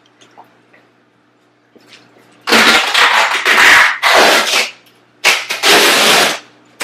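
Duct tape being pulled off the roll and wrapped around a chair in two long, loud rips: one starting about two and a half seconds in and lasting about two seconds, and a shorter one near the end.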